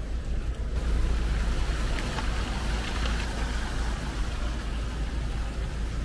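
Outdoor street noise with a heavy wind rumble on the microphone; a passing vehicle's tyre hiss on the wet road swells about a second in and fades after about three seconds.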